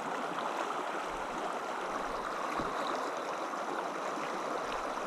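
Steady rush of a river's flowing water.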